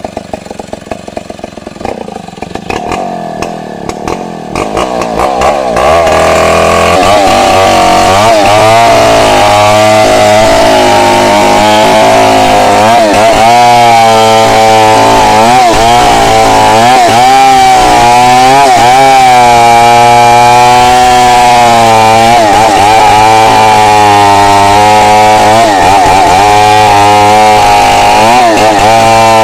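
Two-stroke chainsaw running at a low idle, then opened up to full throttle about five seconds in and cutting through wood, its pitch rising and falling as the chain bites.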